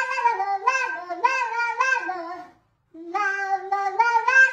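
A high-pitched, childlike voice singing a short, stepping melodic phrase that breaks off about two and a half seconds in and starts again a moment later.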